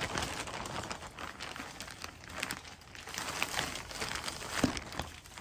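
Thin clear plastic poly bag crinkling and crackling in irregular bursts as a handbag in its cloth dust bag is pulled out of it.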